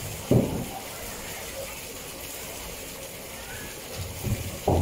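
A hollow plastic barrel being knocked about by a polar bear, giving a sudden heavy thud about a third of a second in and two more near the end, over a steady rush of water.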